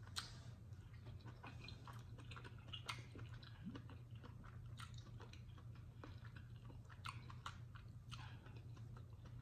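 A person chewing a mouthful of chitterlings (pork intestines): faint, soft wet mouth clicks and smacks at irregular intervals, over a steady low hum.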